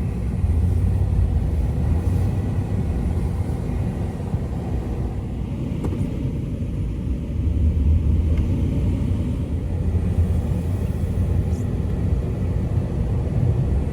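Vehicle driving: steady low engine and road rumble, swelling a little past the middle.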